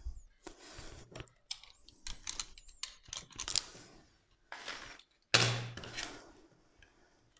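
Snap-off craft knife trimming self-adhesive vinyl foil at the corner of a wooden stool, with light clicks, taps and crinkles as the foil is cut and pressed down. A louder rustling scrape with a dull thud comes about five and a half seconds in.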